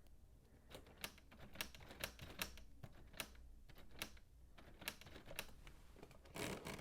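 Keys of a LEGO 21327 Typewriter model being pressed, giving sharp, irregular plastic clacks about once or twice a second, with a quick run of them near the end.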